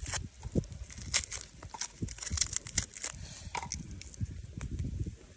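Irregular knocks and clicks as garlic cloves, shallots and chili peppers are dropped into a cut-open tin can.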